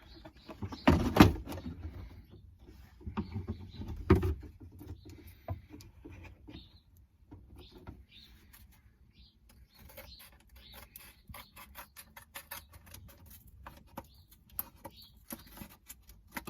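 Cardboard being handled and fitted by hand: rustling and scraping, with two louder knocks about one and four seconds in, then many light scratchy clicks toward the end.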